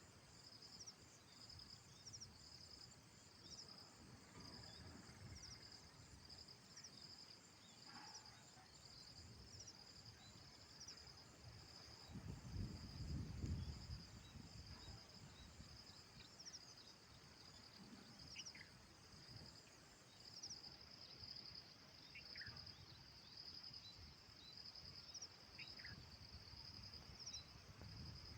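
Insects, cricket-like, chirping in a steady, fast-pulsing high trill that goes on without a break. A low rumble swells about twelve seconds in and fades two seconds later, and a few faint short falling chirps come in the second half.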